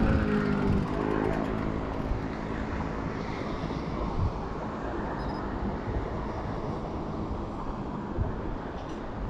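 Wind rushing over the microphone and tyre hum from a road bike descending at speed. In the first second a motor vehicle's engine passes, its pitch dropping as it goes by.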